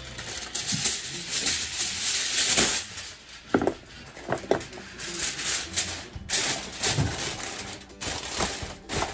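Aluminium foil crinkling and crackling as hands press and crimp it down around the rim of a foil roasting pan, sealing the cover tight.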